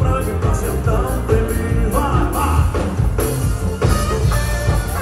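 Live band music: a man singing over acoustic guitar with a steady beat.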